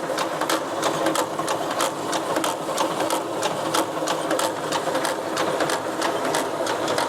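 Brown & Sharpe No. 2 screw machine lathe running, with a steady hum and a fast, even ticking from its gearing and mechanism, about three to four ticks a second.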